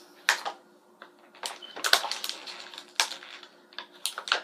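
Clear plastic toy packaging crinkling and crackling as it is handled and opened by hand, in a run of sharp, irregular snaps.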